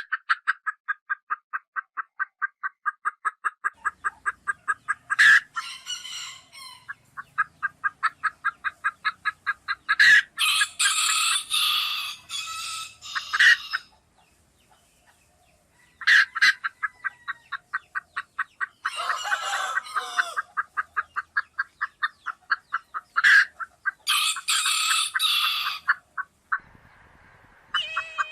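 Baby chicks peeping in a fast, even run of short high cheeps, several a second, with louder, fuller chicken calls breaking in several times. The calling stops briefly about halfway through, then resumes.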